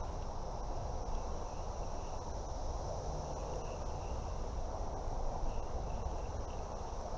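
Steady rush of river current with a continuous high insect trill over it, and a few faint chirps.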